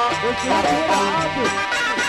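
Loud Egyptian shaabi music: a melody that slides up and down in pitch over a steady repeating bass line.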